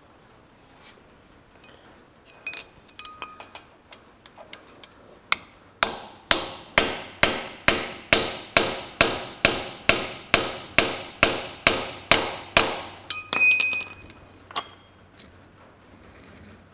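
A hammer drives a wheel bearing further onto a John Deere 4WD tractor's front hub in a steady run of about eighteen metal-on-metal blows, about two and a half a second, each with a short ring. Before the blows come a few light metal clinks, and after them a ringing metal clatter.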